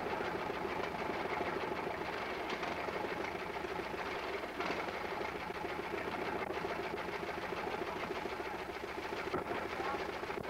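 A machine running with a steady, rapid clatter at an even level.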